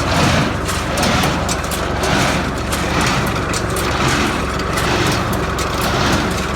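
New Holland 268 Hayliner square baler running, clattering steadily with a repeating beat about once a second.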